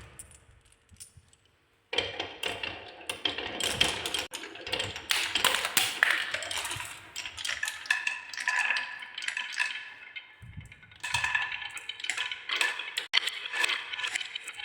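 Marbles rolling and clattering down a wooden marble run: a dense run of clicks and clacks with ringing clinks. It starts about two seconds in, after a near-silent moment.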